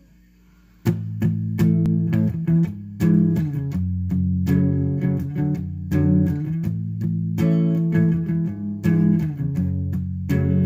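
Fender Stratocaster electric guitar, played through an amplifier: after a faint hum, the playing starts suddenly about a second in with a quick run of picked notes and chords.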